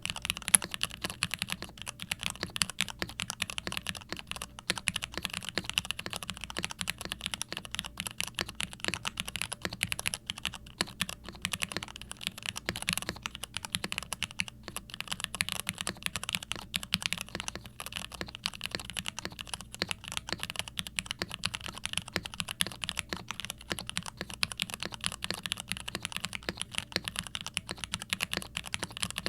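Steady fast typing on a gasket-mounted, foam-dampened plastic TKC Portico68 V2 mechanical keyboard with stock Cherry MX Red Hyperglide linear switches and doubleshot ABS/PBT keycaps: a dense run of keystroke clacks.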